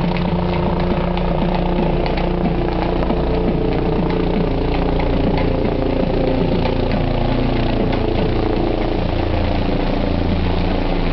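Helicopter flying overhead, its rotor and engine running steadily.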